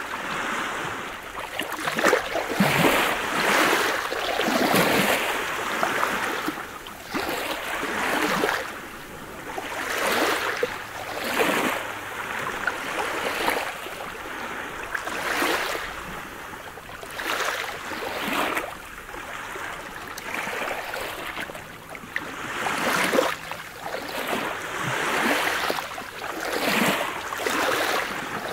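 Small sea waves lapping and breaking on a pebble beach, the wash swelling and falling back about every two seconds, with fine clicking as the water runs over the stones.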